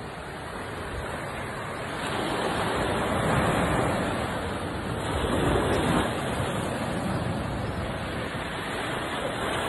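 Sea waves breaking and washing up a stony beach, a steady rush of surf that swells louder twice, about three and six seconds in.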